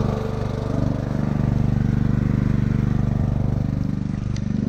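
Four-stroke petrol generator with a Honda 200 engine running steadily, a low, evenly pulsing engine hum.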